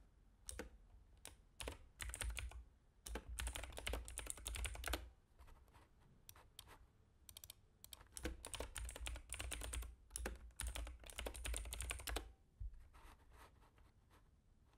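Typing on a computer keyboard: runs of rapid key clicks with short pauses between them.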